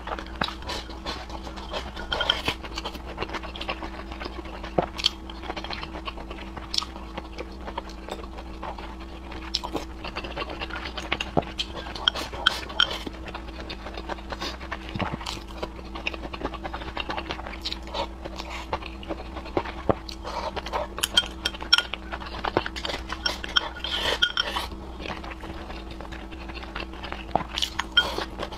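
Close-miked eating sounds: a person slurping and chewing noodles and food from a bowl, with frequent sharp mouth clicks and smacks. A faint steady hum runs underneath.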